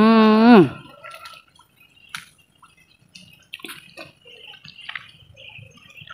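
A woman's short, loud "mmm" of enjoyment, held then falling away. It is followed by soft, wet clicking mouth sounds as she eats soft, ripe sugar apple flesh.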